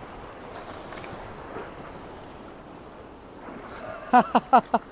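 Sea surf washing steadily against a rocky shoreline. A brief, loud burst of a person's voice comes near the end.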